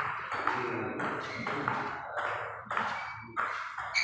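Table tennis rally: the celluloid ball clicking off rubber paddles and bouncing on the table, a sharp pock roughly every half second, ringing briefly in the hall.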